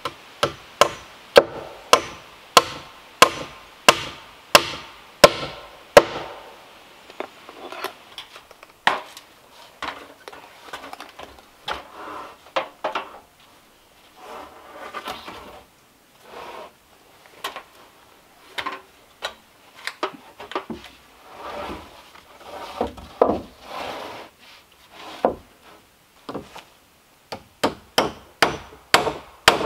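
Hammering on a log-pole shed roof frame: a steady run of sharp blows, about one and a half a second. Then come scattered wooden knocks and scrapes as poles and boards are shifted on the rafters, and a quicker burst of hammering near the end.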